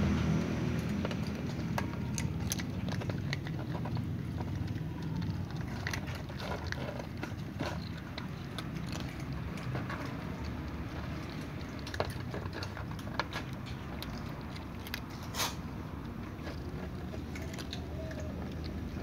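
Several cats crunching dry kibble: many short, irregular crunches and clicks as they chew and pick pellets off a plastic tub, over a steady low rumble, with one sharper click about 15 seconds in.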